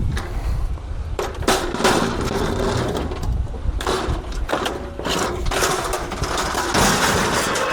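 Metal scraping and clanking as a steel radiator is handled and slid onto a scrap truck, with a drawn-out grating scrape through the middle and a steady low rumble underneath.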